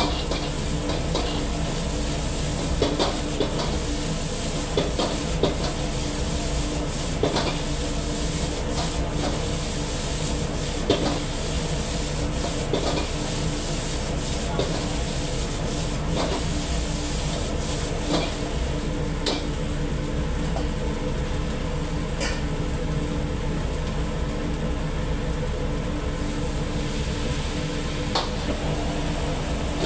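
A metal ladle scraping and knocking against a wok as fried rice is stir-fried and tossed, with many irregular clinks and scrapes. Underneath runs a steady low rumble from the gas wok burner, and a sizzling hiss fades about two-thirds of the way through.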